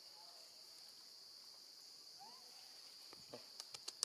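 Steady high insect drone, like crickets, with one faint short rising squeal from a baby monkey about halfway through. A few sharp clicks follow near the end.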